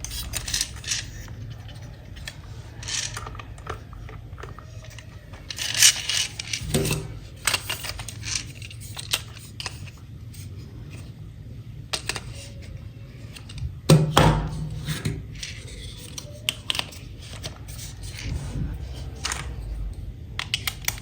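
A toy and its packaging being handled: scattered plastic clicks, rattles and rustling, with two louder knocks about six and fourteen seconds in.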